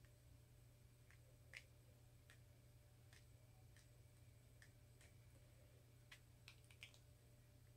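Near silence: a low steady room hum with about nine faint, short clicks scattered irregularly through it.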